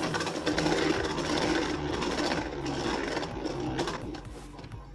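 Beyblade Burst Neptune Armed Zephyr top spinning on its hole-flat tip across a plastic stadium floor, a steady whirring rattle that grows quieter near the end.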